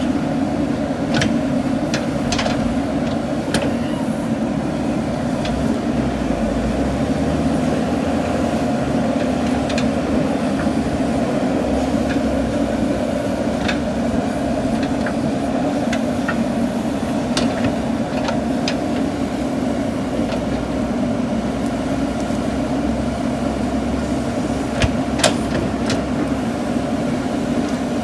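JCB backhoe loader's diesel engine running steadily under working load, with a dozen or so sharp knocks scattered through it, the loudest near the end.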